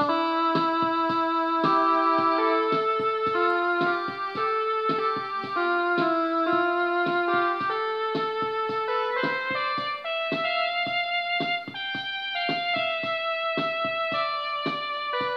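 Electronic home keyboard playing a tune in a piano-like voice, with held notes over a steady rhythmic beat.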